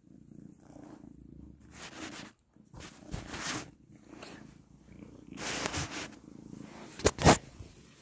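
Domestic cat purring close to the microphone: a low steady rumble with louder rasping swells every second or two. There are two sharp bumps about seven seconds in.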